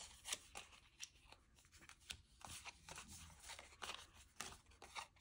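Faint, irregular rustles and clicks of Pokémon trading cards and their foil booster-pack wrapper being handled.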